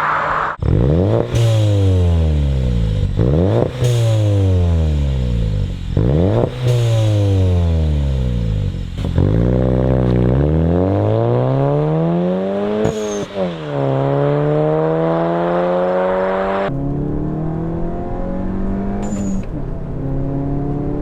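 Volkswagen Mk6 GLI's turbocharged 2.0-litre four-cylinder engine revving through its exhaust. There are three quick blips that rise sharply and fall away slowly, then a longer climb in revs broken once by a sudden drop and rising again. About two-thirds through the sound changes abruptly to steadier, lower running.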